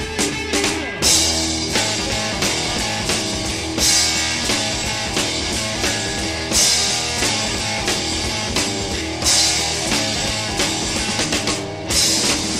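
Instrumental blues-rock band recording: electric guitar over a drum kit, with a cymbal crash about every three seconds.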